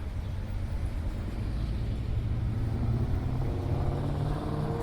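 Car engine running with a low rumble; from about three seconds in its tone climbs in pitch as the car pulls away and accelerates.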